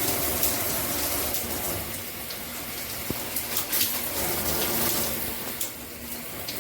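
Water spraying steadily from a 2-in-1 handheld and rain shower head running in a shower.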